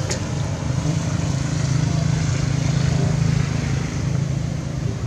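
Motor vehicle engine droning as it passes on a road, swelling to its loudest around the middle and fading again, over a steady outdoor hum. A brief sharp click right at the start.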